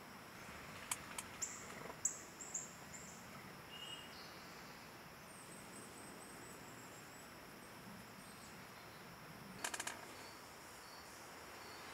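Faint outdoor ambience of insects chirring steadily at a high pitch, with a bird giving several short, high, falling chirps about one to three seconds in. A few sharp clicks come about a second in, and a quick run of clicks near the end.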